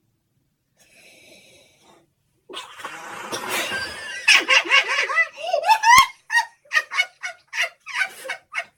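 A person laughing hard: breathy, wheezing laughter that climbs in pitch to a high squeal about six seconds in, then breaks into a run of short repeated laughs, about two a second.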